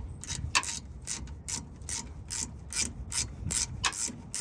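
Ratcheting wrench turning the greased lower AC compressor bolt on a Nissan 1.8 L engine, clicking in an even run of about three clicks a second.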